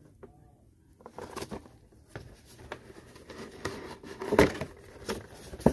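A clear plastic mini-helmet display case handled and turned over by gloved hands: a string of light clicks, knocks and rustles, with a louder knock about four and a half seconds in and a sharp click near the end.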